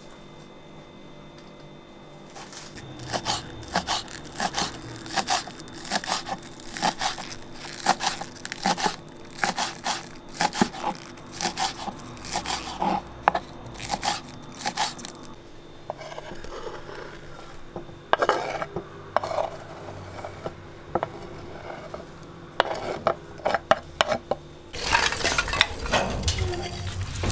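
Kitchen knife chopping green onions on a wooden cutting board: a steady run of chops about two a second, then softer, sparser cuts. Near the end, thin wooden kindling sticks clatter against each other as they are gathered up from a tiled floor.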